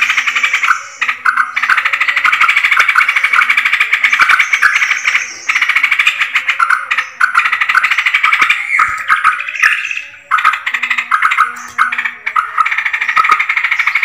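A flock of yellow-vented bulbuls (trucukan) chattering in a dense, busy chorus of rapid calls, with a few brief breaks. This is a bird-lure recording meant to draw in more trucukan.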